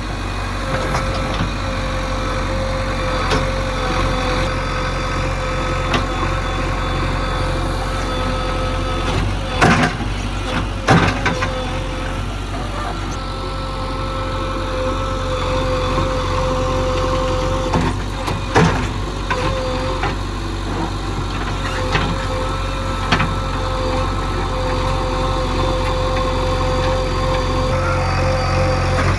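Diesel engine of heavy machinery running steadily, with a steady whine over it. A few sharp clanks come about ten, eleven and eighteen seconds in.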